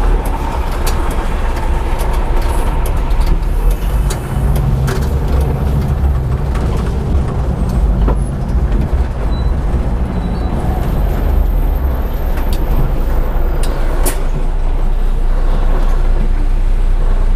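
City bus driving, heard from the driver's cab: a steady low engine and road rumble, with a few sharp clicks and knocks.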